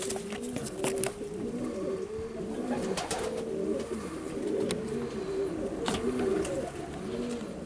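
Magpie pigeons cooing steadily, with many overlapping rising-and-falling coos, broken by a few sharp clicks.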